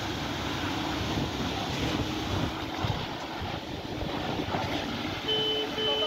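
Truck-mounted concrete pump running steadily while it pumps concrete through the discharge hose onto the slab. A truck's reversing alarm beeps twice near the end.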